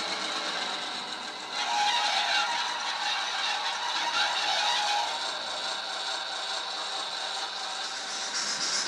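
HO-scale X 5800 railcar model running, its ESU LokSound V4 decoder playing diesel railcar sound through the model's small speaker over the whir and rattle of its motor, gears and wheels. It grows louder about a second and a half in, with a thin wavering squeal for a few seconds.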